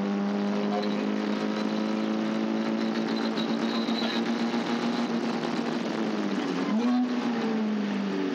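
Caterham race car engine running hard at high, nearly steady revs over a constant rush of wind and road noise. About six and a half seconds in the pitch dips and jumps back up, a gear change, then slowly falls.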